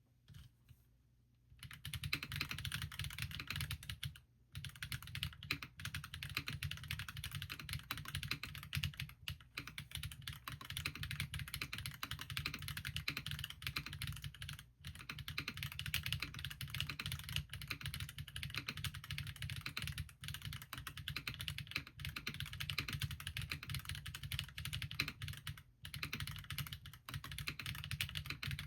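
Fast, continuous typing on a Bahm Studio Droplet mechanical keyboard with stock Geon RAW ZERO switches and Linworks keycaps: a dense clatter of keystrokes. It starts about a second and a half in, with brief pauses near 4, 15 and 26 seconds.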